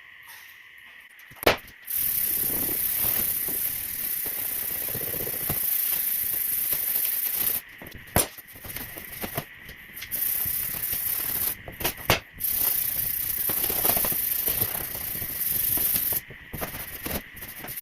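Evapo-Rust rust remover being poured back into its bottle: a steady rushing hiss in several runs of a few seconds each, stopping and starting, with a few sharp knocks of the containers in between.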